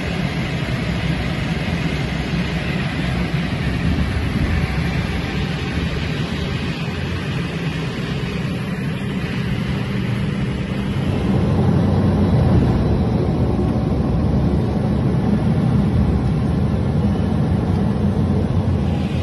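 Steady drone of an amphibious firefighting aircraft's engines heard from inside the cabin, growing somewhat louder about eleven seconds in.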